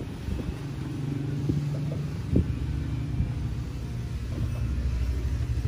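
Egg grading machine running: a steady low motor hum with a fast, even rhythmic pulsing from its roller conveyor. A single light knock about two and a half seconds in, as eggs are set onto the steel roller tray by hand.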